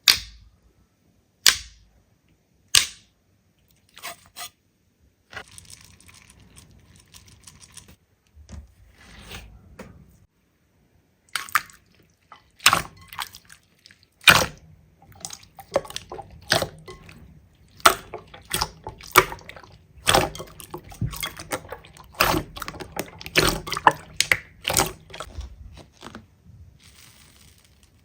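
Slime being squeezed and pressed by hand, making sharp pops and clicks. Three loud single pops come in the first few seconds. About halfway through they turn into a fast, irregular run of pops and wet clicks.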